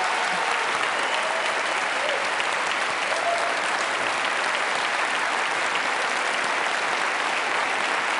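Large audience applauding steadily, dense continuous clapping, with a few faint shouts from the crowd in the first three seconds.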